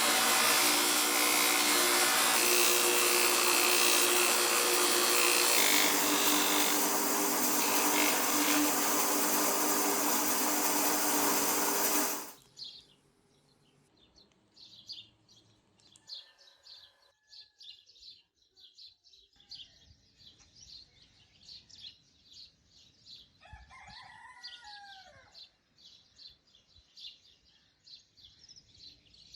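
A power tool, most likely sanding or grinding, runs loudly and steadily with a hum, then stops abruptly about twelve seconds in. After it stops, birds chirp continuously, and a rooster crows briefly about two-thirds of the way through.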